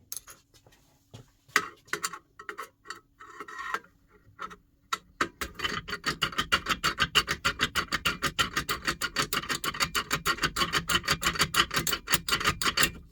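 Self-impression pick being worked in a six-lever Elbor lever lock, clicking metallically against the levers. Scattered clicks give way about five seconds in to a fast, even run of clicks, about eight a second.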